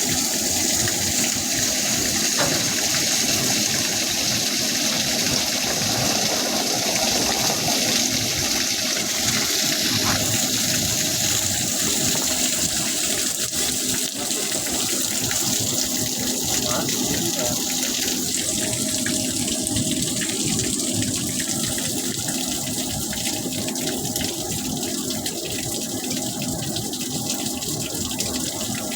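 Steady rushing hiss of running water, with a faint steady low hum beneath it.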